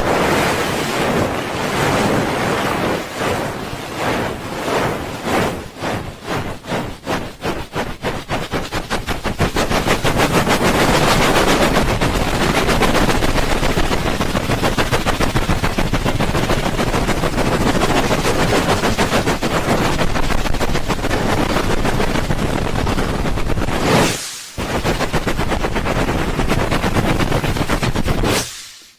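Hands rubbing the ears of a binaural dummy-head microphone in the fast 'helicopter' ASMR trigger: separate strokes speed up into a rapid, even flutter, which stops briefly about three quarters of the way through and then resumes.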